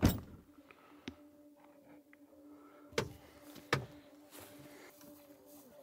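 A vehicle door pushed shut with one loud thud, followed by a few smaller knocks and clunks. A faint steady hum runs underneath.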